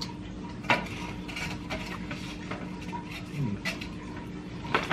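Scattered light clicks and taps of a plate and food being handled on a tabletop, with a sharper tap about a second in and a cluster near the end, over a steady low hum.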